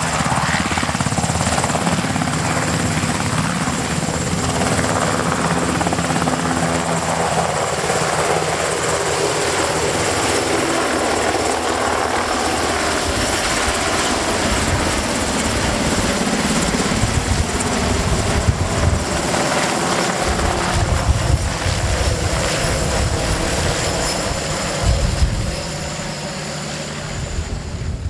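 UH-60J rescue helicopter's twin turboshaft engines and main rotor running loud as it lifts off from the grass and flies away. Uneven gusts of low rumble come in from about twelve seconds, and the sound eases near the end.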